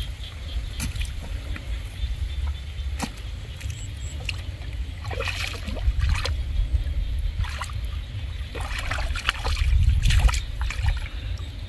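Hands sloshing and splashing in shallow muddy water while feeling through the mud of a ditch for fish: scattered splashes and trickles, busier in the second half. A steady low rumble runs underneath.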